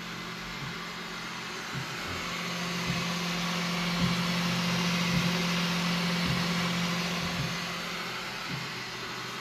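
Bambu Lab X1-Carbon 3D printer running a print: a steady whirr of fans over a low motor hum. It grows louder through the middle and eases near the end, with a few faint ticks.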